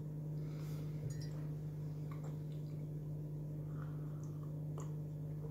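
Quiet chewing and a sip from a glass mug of coffee, with a few small clicks, over a steady low hum.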